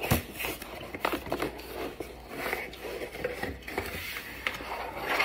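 Cardboard mailer box being handled and opened by hand: a run of short, irregular scrapes, taps and crackles of the cardboard and its packing tape.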